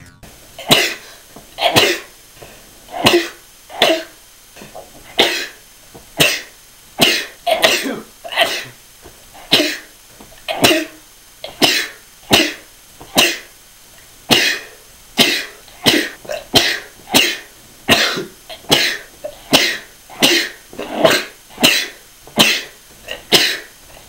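A rapid string of explosive human sneezes, dozens in a row, about one a second at first and quickening to about two a second.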